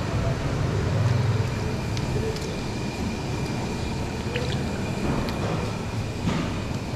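Steady low rumbling background noise of a working kitchen, with a faint steady high whine and a few light clicks and taps.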